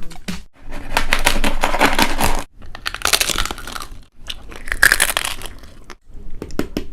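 Crunching and crackling of food close to the microphone, in four bursts of one to two seconds each.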